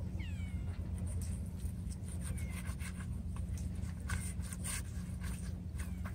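Knife cutting and scraping fish on a plastic cutting board: a string of short clicks and scrapes, with a couple of brief falling squeaks near the start, over a steady low rumble.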